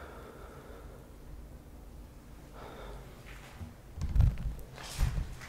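A person breathing close to the microphone, with a couple of breathy exhales later on. Low thumps come about four seconds in and again near the end.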